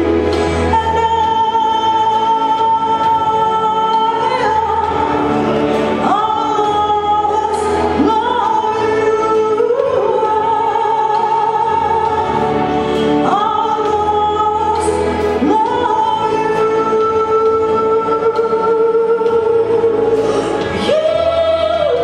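A woman singing a slow pop ballad live into a microphone in long, held notes that swoop up into each new pitch, over a recorded instrumental accompaniment with a steady bass line.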